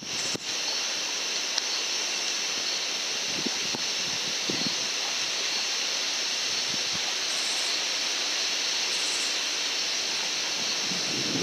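Steady hiss of outdoor night ambience and microphone noise, recorded through a Pulsar Trail XP50 thermal rifle scope's built-in microphone, with a few faint soft knocks in the middle.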